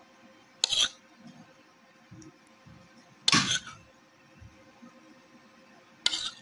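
A metal spoon clinking and scraping against glass dishware three times, about two and a half to three seconds apart, as jelly cubes are set onto a dessert, with faint knocks in between and a faint steady hum.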